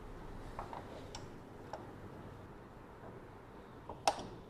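Light metal clicks from the right pedal being fitted to the e-bike's crank arm: a few faint ticks, then one sharper click about four seconds in.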